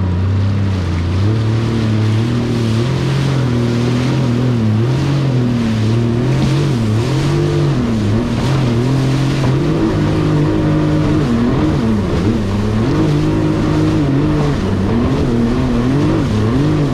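An 1100 cc jet ski engine running hard under way, its pitch dipping and rising again and again as the throttle is worked over choppy water, over a steady rush of water and wind noise.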